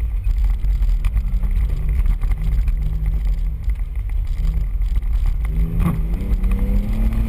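Off-road 4x4's engine running under a heavy low rumble as it drives a rough trail, with wind on the hood-mounted microphone. Near the end the engine note rises in pitch.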